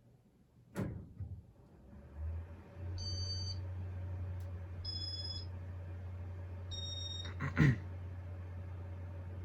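Casablanca San Marino ceiling fan switched on with a click, its motor then humming steadily. Three short high electronic beeps sound about two seconds apart, and a sharp knock comes near the end.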